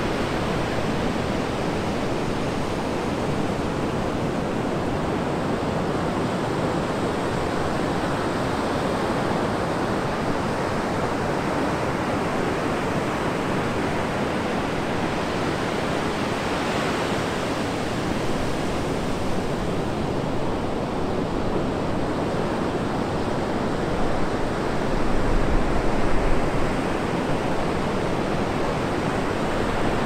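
Atlantic surf breaking and washing up the beach: a continuous rushing wash of waves. A louder low rumble swells a few seconds before the end.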